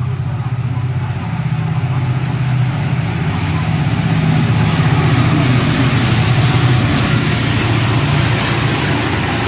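Diesel locomotive hauling a freight train of tank wagons passing close by, its engine running with a steady low hum. The sound swells as it draws level, with wheel and rail noise building about halfway through.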